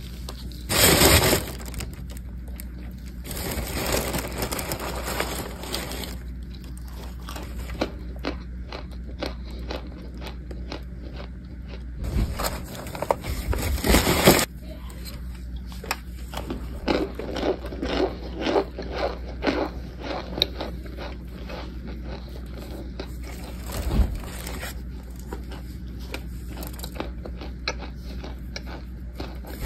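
Crisp crunching of powdery cornstarch chunks being bitten and chewed, in runs of short strokes, with crumpled aluminium foil crinkling in loud rustling bursts about a second in and again around twelve to fourteen seconds in. A steady low hum runs underneath.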